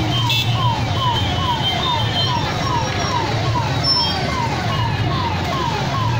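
A 108 ambulance's siren wails in a quick falling sweep that repeats about two and a half times a second. Under it is the steady hum of engines in a traffic jam.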